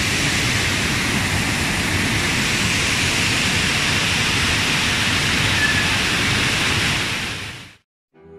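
Steady rush of a rocky mountain stream running over stones in small rapids, fading out to silence near the end.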